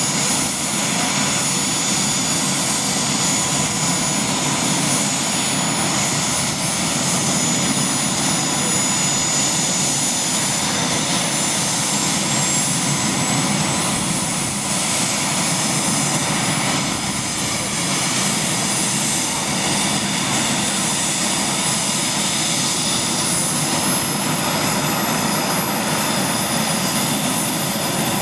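Westland Sea King helicopter's twin turboshaft engines and turning rotors running steadily on the ground before lift-off. A dense, even engine and rotor noise is topped by a high turbine whine that rises slowly in pitch around the middle and again near the end.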